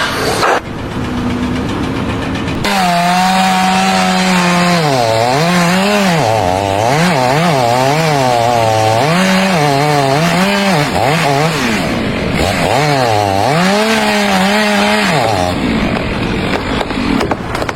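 A small engine revving up and down over and over, starting a few seconds in and stopping near the end, over a steady noisy background.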